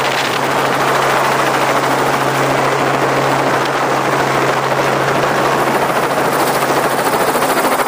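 Robinson R44 helicopter in a low hover just above the ground, its main rotor and six-cylinder piston engine running steadily. The rotor's fast beat comes through more plainly near the end.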